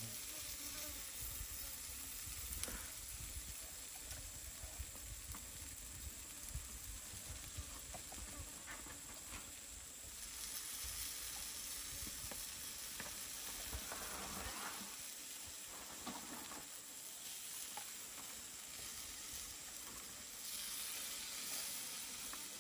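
Chicken sizzling as it grills over a fire, a steady hiss with scattered small crackles. A low rumble runs under it for the first fourteen seconds or so, then eases.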